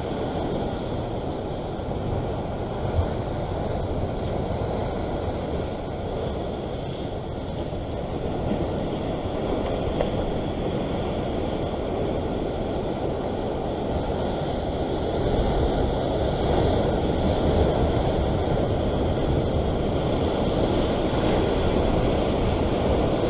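Sea surf washing and churning against a rock ledge, with wind on the microphone: a steady rushing noise that grows a little louder from about fifteen seconds in.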